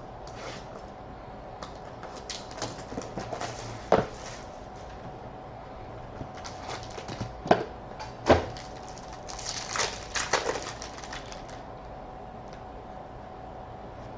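Hands opening and handling a box of hockey trading cards: scattered clicks and taps of cardboard and cards, sharpest about four seconds in and twice more around seven and eight seconds in, then a cluster of short scraping rustles. A faint steady hum runs under it.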